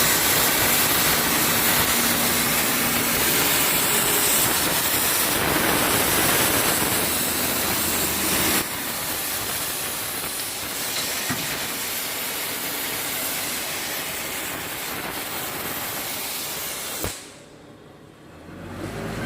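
Oxy-fuel gas cutting torch on a semi-automatic cutting machine, hissing steadily. The hiss drops somewhat in level about halfway through, and near the end a sharp click comes just before it cuts off to a much quieter background.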